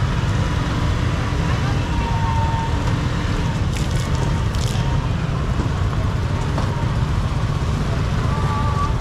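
Busy open-air street market ambience: indistinct voices of vendors and shoppers over a steady low rumble of motorbike traffic.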